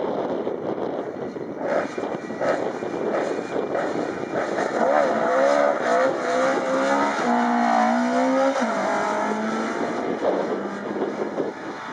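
Ford Escort Mk2 rally car's engine revving hard as it accelerates out of a corner, its pitch climbing and dropping back with gear changes, then holding a steady note.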